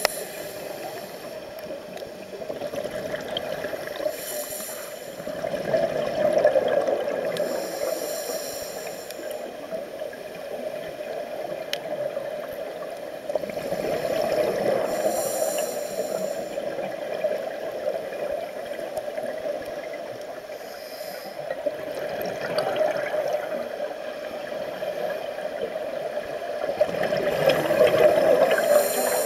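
Scuba diver breathing underwater through a regulator: a short hiss on each inhalation, then a gurgling rush of exhaled bubbles, a breath every six or seven seconds.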